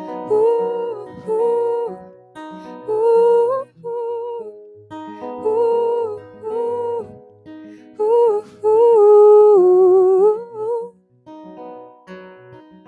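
A woman singing a wordless melody over a strummed acoustic guitar; near the end her voice drops out and the guitar plays on alone.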